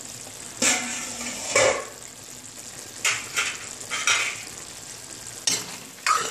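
A metal spoon stirring and scraping chopped tomatoes in a metal kadhai, knocking against the pan several times, over a soft sizzle of the tomatoes cooking down in their own juice.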